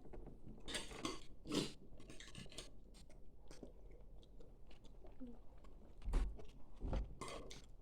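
Eating sounds at a meal table: quiet chewing with scattered small clicks and taps, and a couple of dull thumps about six and seven seconds in.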